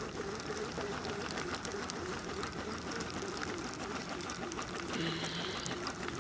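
Fishing reel being cranked to wind in line on a hooked catfish, a steady run of rapid ratcheting clicks.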